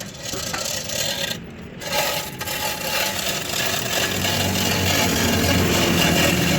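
A steady rough rasping and scraping, as of metal being worked on a repair. A lower hum joins it about four seconds in.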